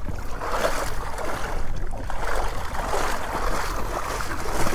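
Water sloshing and splashing as a stalled, flooded vehicle is pushed through a water crossing, heard as a steady rush over a low rumble.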